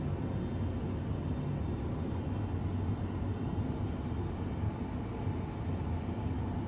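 Steady low hum with a faint hiss, unchanging throughout: background room noise.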